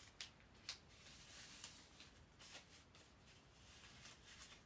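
Faint rustling and crinkling of a strip of shoji paper being handled in the hands, with two sharp ticks in the first second and a few softer crinkles after.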